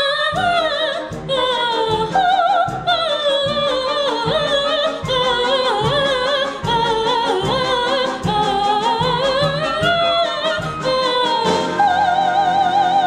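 Operatic soprano singing with wide vibrato over an orchestral accompaniment with a steady pulse, the voice climbing and falling through a florid line and holding a long high note near the end.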